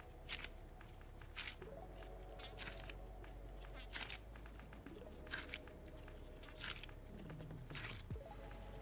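Sticky homemade cold porcelain dough of cornstarch and white glue, gone slime-like, squeezed and pulled apart by hand. It gives soft squelches and sticky pops at an uneven pace, one or two a second.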